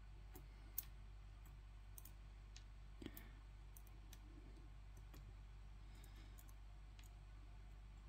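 Faint, scattered small clicks of metal tweezers and tiny lock pins being set into the slots of a pin tray. The sharpest click comes about a second in, and another about three seconds in.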